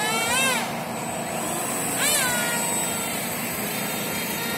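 RC model F-22 Raptor jet flying overhead, its motor giving a steady high whine. The pitch swells up and falls back twice, about half a second in and again about two seconds in, as it throttles and passes.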